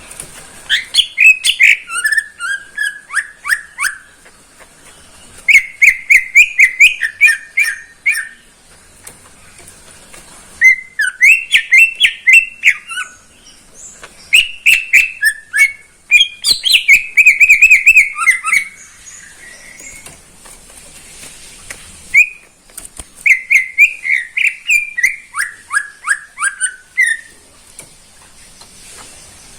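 A green leafbird (cucak ijo) singing in five bouts of rapid, varied whistled and chattering phrases, each a few seconds long, with short pauses between them.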